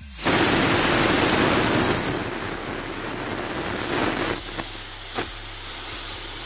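Stovetop aluminium pressure cooker whistling: the weighted valve lifts and steam rushes out with a loud hiss that starts suddenly, is loudest for the first couple of seconds, then continues a little lower with a few sharp clicks. It is the last of six whistles, the sign that the chana dal inside is cooked.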